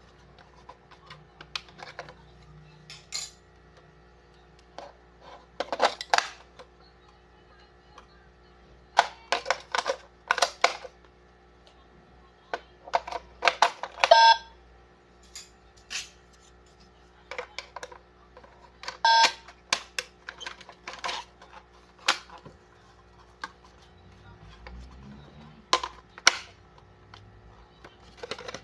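Irregular plastic clicks, taps and rattles from handling a toy telephone and its packaging, with a couple of short beeps.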